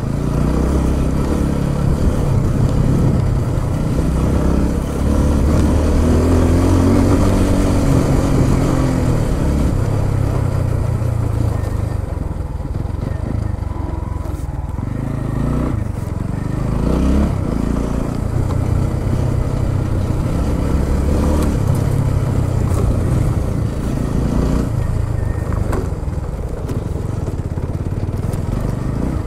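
Motorcycle engine running at changing revs while the bike is ridden along a rough off-road trail.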